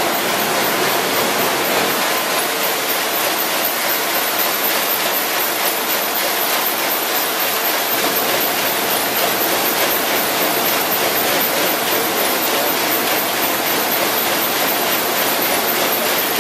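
RYOBI 758P eight-colour offset press running in production: a loud, steady mechanical rush with a faint hum running through it.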